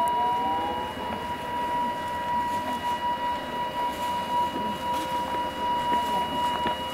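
A siren sounding one long steady tone, with a fainter second tone rising to meet it in the first second.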